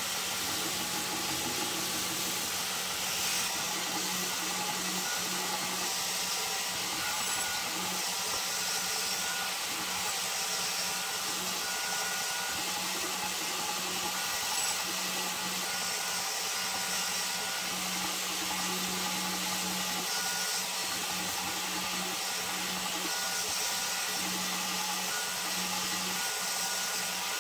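Belt grinder running with a 120-grit belt while a forged steel hatchet head is pressed against it at the contact wheel: a steady hiss of abrasive on steel over the motor's low hum, the grind moving on from 36 grit to a finer finish on the radiuses.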